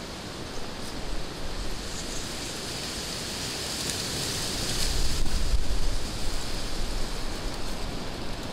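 Wind noise: a steady rushing hiss with low buffeting on the microphone, growing stronger about five seconds in.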